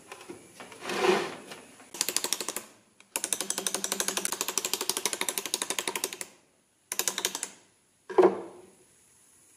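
Rapid, even clicking of a hand-turned ratcheting driver as it turns a bit into a casting pattern bedded in the sand mold, in three runs, the middle one about three seconds long. A knock about a second in, and a sharper one near the end.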